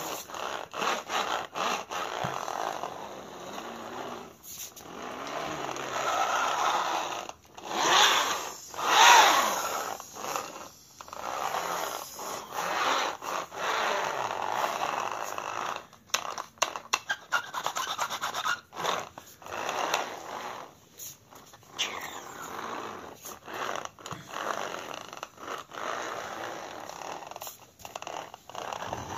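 Small plastic wired remote-control toy car rolling and scraping on a gritty concrete floor: a rough scraping, rattling noise that stops and starts many times. It is loudest about eight to ten seconds in.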